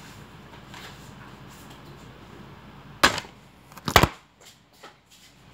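Faint steady room noise, then two sharp knocks about a second apart as the recording phone is handled and lifted off a glass tabletop.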